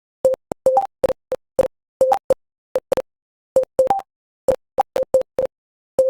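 Hancom Typing Practice's keystroke sound effect: short electronic beeps, one per key press at an uneven typing pace, mostly at one pitch with some higher-pitched ones, with complete silence between them.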